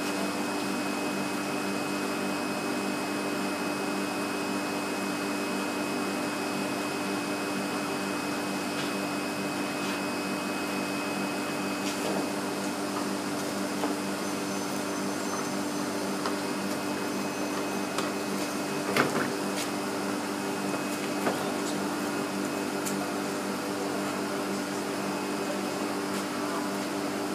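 Steady mechanical hum of aquarium pumps and filtration equipment, with a few faint clicks and knocks, the clearest about two-thirds of the way through.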